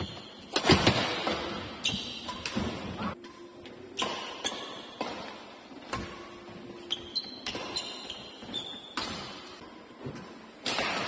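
Badminton rally in an echoing indoor hall: sharp racket strikes on the shuttlecock come at irregular intervals about a second or so apart, with brief high squeaks of shoes on the court between them.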